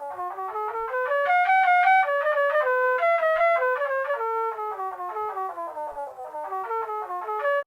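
A MediaTek phone ringtone: a quick synthesized melody of short notes running down and up in repeating cascades, several notes a second. It cuts off abruptly near the end.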